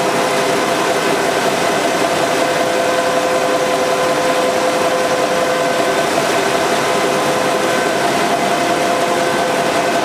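Müller Martini Progress two-colour wet offset web press running: a loud, even mechanical drone with a constant hum in it.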